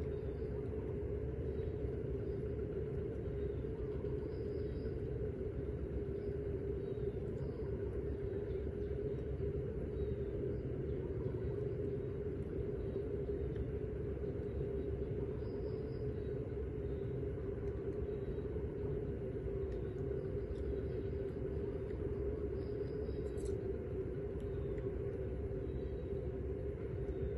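A steady low rumble with a constant droning hum, unchanging throughout.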